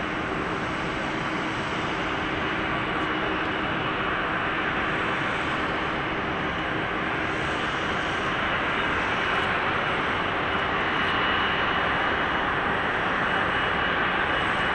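Airbus A330-300 airliner's jet engines at taxi idle, a steady rushing hum with a faint high whine, growing slightly louder as the aircraft taxis closer.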